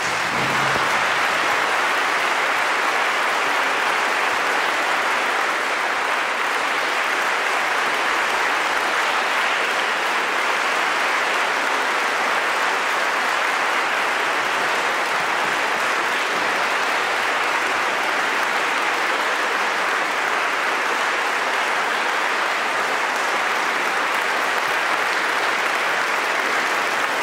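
Audience applauding steadily, breaking out as the song's last note fades and holding at an even level.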